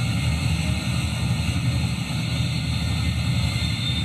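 F-35B Lightning II's jet engine running at high power: a steady, deep rumble with a hiss over it, holding level throughout.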